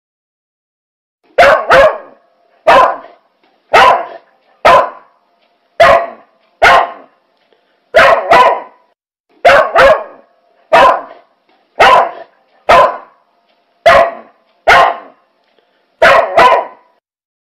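A dog barking over and over, loud sharp barks about one a second with some coming in quick pairs, starting after a moment of silence.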